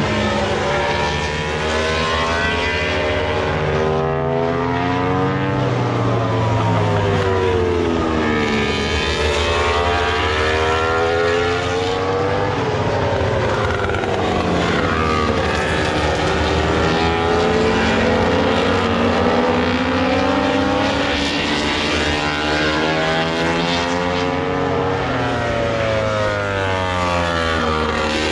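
Several racing motorcycle engines at once, their pitch repeatedly dropping and then climbing again as the bikes brake, shift and accelerate. The sound is loud and continuous, with the overlapping engine notes rising and falling every few seconds.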